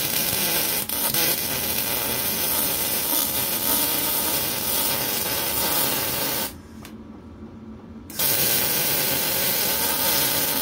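Electric welding arc running on steel, a steady hissing crackle from a small welder on 110 volts. The arc breaks off about six and a half seconds in and strikes again a second and a half later.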